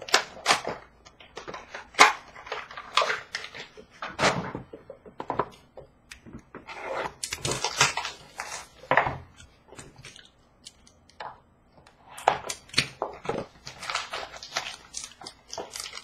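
Hockey trading-card packs and cards being handled, with irregular crinkles, clicks and taps, and a longer stretch of rustling wrapper in the middle.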